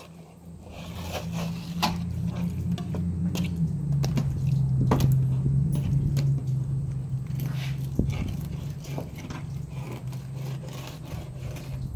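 A low engine hum swells over the first few seconds, is loudest around the middle, then slowly eases off. Over it, a fillet knife and a speckled sea trout scrape and knock against a plastic cooler lid, with a few sharp clicks as the fish is turned and cut.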